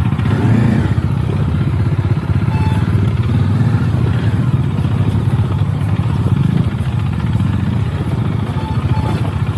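Motorcycle engine running steadily with an even, rapid beat.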